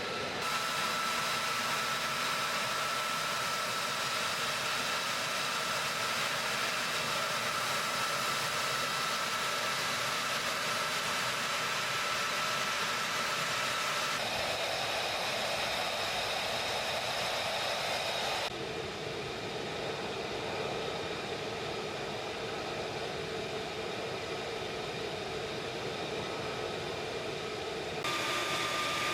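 Fighter jet engine running at idle: a steady whine with high tones over a strong rushing hiss. Its pitch and loudness change abruptly about halfway through, again a few seconds later, and once more near the end.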